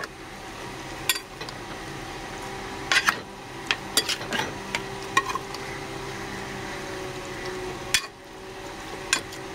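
Metal spoon stirring a thick chicken marinade in a pressure cooker, with sharp clinks of the spoon against the pot every second or so, over a steady low hum.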